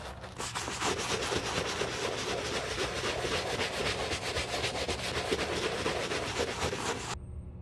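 Small bristle brush scrubbing a foam-lathered leather loafer in rapid, even back-and-forth strokes, a wet scratchy rubbing; it cuts off abruptly near the end.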